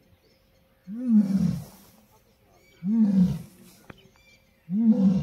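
Asiatic lion roaring: three short, low calls about two seconds apart, each rising and then falling in pitch.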